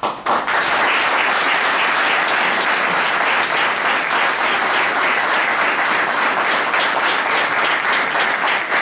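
A group of people applauding, the clapping starting abruptly and keeping up steadily.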